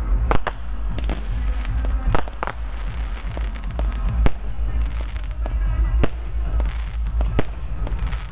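Consumer fireworks going off: about ten sharp bangs from aerial cakes and shells at irregular intervals, the loudest about four seconds in, with the hiss and crackle of ground fountains between them. A steady low rumble runs underneath.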